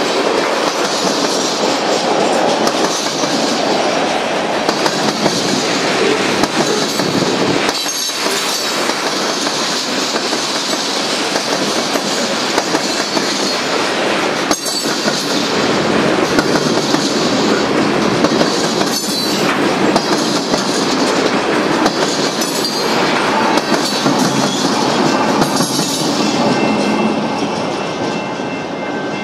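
Freight train of covered hoppers and tank cars rolling past, steady wheel-on-rail noise with occasional clicks and knocks from wheels over rail joints. The last cars go by near the end and the noise eases off.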